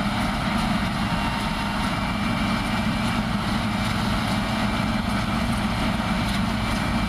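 New Holland TC54 combine harvester running steadily while harvesting. It gives a continuous, even machine drone.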